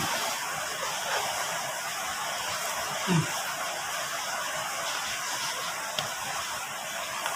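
Steady hiss of rain falling outside, with a brief low sound about three seconds in and a light click near six seconds.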